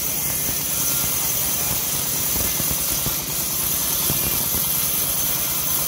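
Homemade band sawmill running steadily, its blade ripping a plank of hard jowar wood as it is fed through, with a constant low hum and a high hiss.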